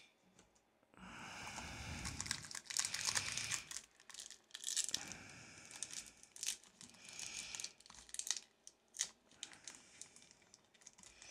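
Foil wrapper of a Pokémon booster pack crinkling and tearing as it is opened by hand, in a run of irregular crackles that starts about a second in.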